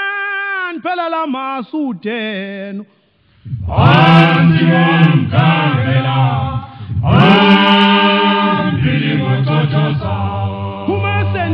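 Male a cappella choir singing in the Zulu isicathamiya (cothoza mfana) style. A lead voice sings for about three seconds, then after a short gap the full choir comes in loud, with deep bass parts under close harmony.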